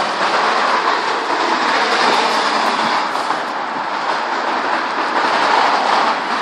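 Gale-force wind blowing hard as a loud, even rushing noise that swells slightly in a gust about five seconds in.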